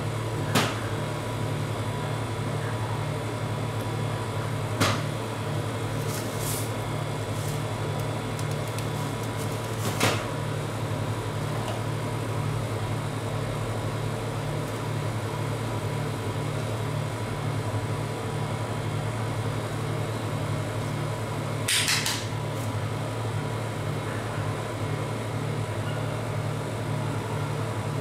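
Steady low hum of a rolled-ice-cream machine's refrigerated cold plate running, with a few short sharp taps and clicks scattered through it: near the start, about five and ten seconds in, and a brief cluster around twenty-two seconds.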